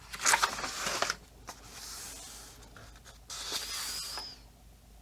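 Paper pages of a coloring book being turned, with a loud crackling rustle about a quarter second in and two softer swishing turns later on.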